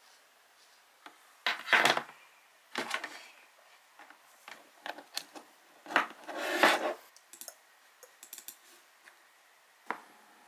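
A few short bursts of rubbing and scraping with light knocks, the sound of objects being handled.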